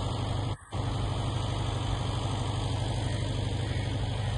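Coal freight train led by an HGMU-30R diesel locomotive creeping in slowly, a steady low drone and rumble. The sound drops out for a moment about half a second in.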